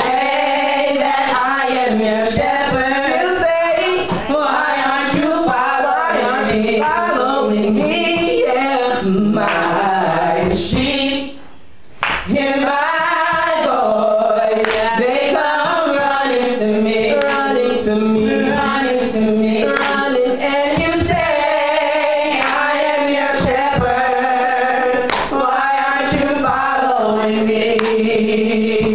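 A woman and a man singing a gospel duet together into amplified handheld microphones, accompanied by drums, with a brief pause about eleven seconds in.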